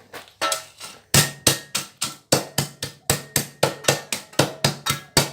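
Dirt being tamped down hard into a wooden forge box: a few lighter knocks, then a steady run of heavy strikes about three or four a second.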